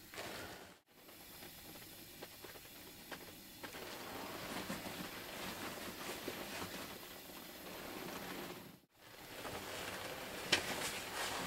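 Quiet hunting-blind ambience: a low, steady hiss with faint rustling. A few light clicks near the end come as the muzzleloader is handled and raised toward the blind window.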